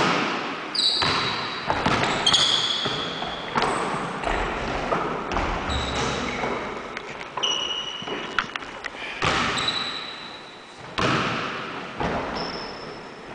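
Basketball bouncing on a hardwood gym floor in irregular thuds, with short high-pitched squeaks from sneakers on the boards, echoing in the hall.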